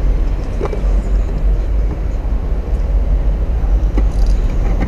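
Steady low rumble of city road traffic, with a couple of faint knocks.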